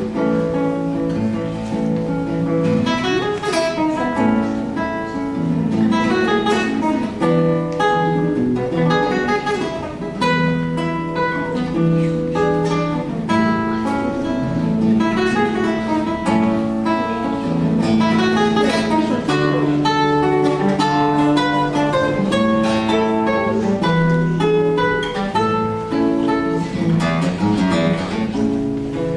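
Acoustic guitar playing a piece live, with quick runs of plucked notes over lower held notes.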